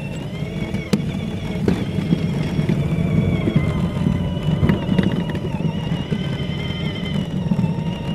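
Electric motor and gearbox of a child's battery-powered ride-on toy fire truck running with a steady whine, while its plastic wheels rumble over a concrete sidewalk.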